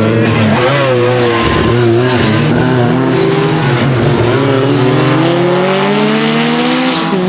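Lancia Rally 037's supercharged inline-four engine running hard under load. The pitch wavers up and down for the first few seconds, then climbs steadily before dropping suddenly near the end at an upshift and starting to rise again.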